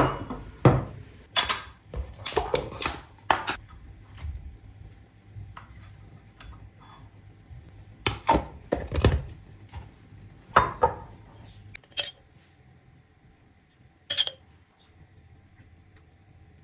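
Breakfast dishes being handled: a plate and bowls set down on a table, then a utensil scooping from a plastic tub and tapping a glass saucer. A string of separate clinks and knocks, thinning out after about twelve seconds.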